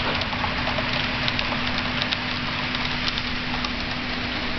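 HO scale model passenger train running along the layout's track at speed: a steady hum with a noisy wash of wheels on rail and scattered small clicks.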